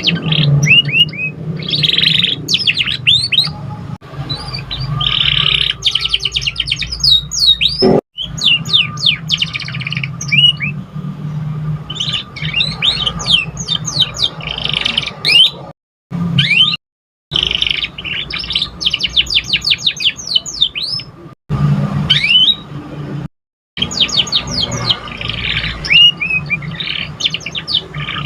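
Domestic canary singing a long song of rapid trills and quick repeated up-and-down notes. The recording cuts out abruptly to silence several times between phrases.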